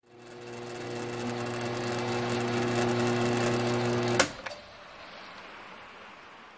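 A benchtop milling machine's spindle motor running with a steady hum, switched off with a sharp click about four seconds in. Rain on a metal roof goes on as a fainter even hiss after the motor stops.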